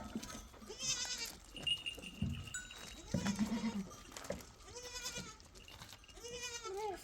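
Goats bleating, about four wavering calls spaced a second or two apart, with a brief ringing tone like an animal bell near the second call.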